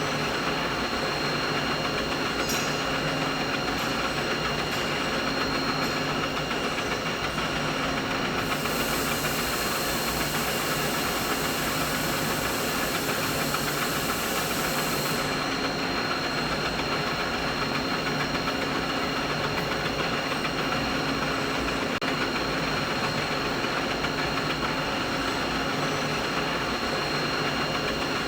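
Steady, unbroken machine noise with a few constant whining tones running through it. An extra high hiss joins from about eight seconds in and drops out about seven seconds later.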